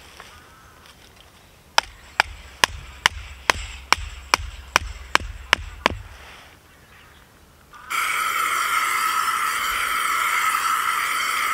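About a dozen sharp, evenly spaced knocks, roughly two and a half a second. From about eight seconds in comes a loud, steady whirring with several wavering pitched tones.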